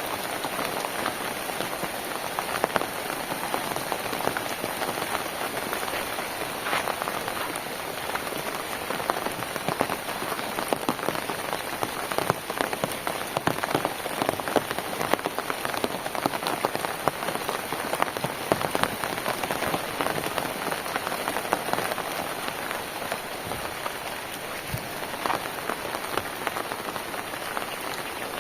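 Steady rain falling on a surface, a dense patter of many individual drops.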